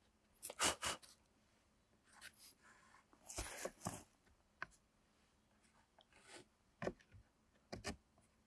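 Pencil scratching on wooden boards and a thin wooden slat scraping and tapping against the board edges while the board ends are marked out. A few short scratches and taps, the loudest about a second in, and a longer scrape around three and a half seconds in.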